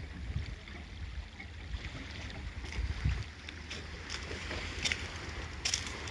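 Wind buffeting the microphone with a low, uneven rumble, and a few light clicks in the second half.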